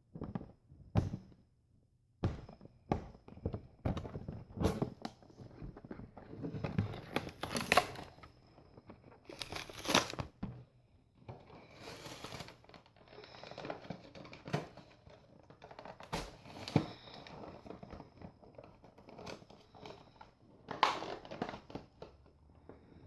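Toy Nerf gun packaging being opened by hand: plastic and cardboard crinkling and tearing in irregular bursts, with scattered knocks and clicks.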